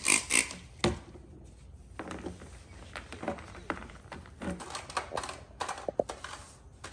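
Trigger spray bottle squirting twice onto a plastic armrest, then a microfiber towel rubbing over the plastic with scattered light knocks and clicks as the part is handled.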